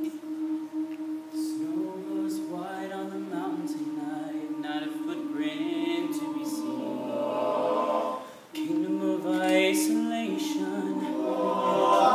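All-male a cappella group singing in close harmony: a held chord opens, more voices join in, and after a brief break about eight seconds in the group swells louder near the end.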